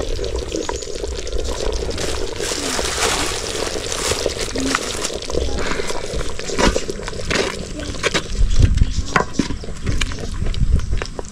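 Water sloshing and trickling, with scattered clicks and knocks of handling and a few heavier low thumps about nine seconds in.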